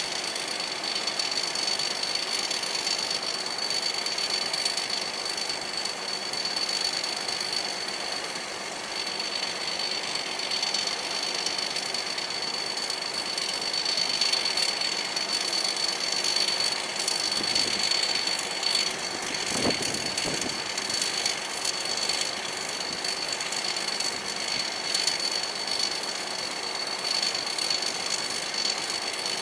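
Combine harvester running steadily, with a constant high-pitched whine over the machine noise and a brief swell about twenty seconds in.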